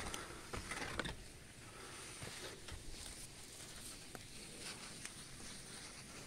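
Faint rustling and crackling of footsteps through dry leaves and twigs, with a few louder crackles in the first second and scattered light ticks after.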